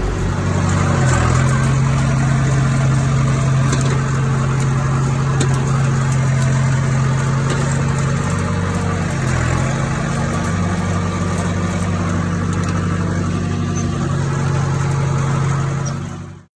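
John Deere 455E crawler loader's diesel engine running steadily, its pitch dipping briefly twice as it takes load. The sound cuts off abruptly at the very end.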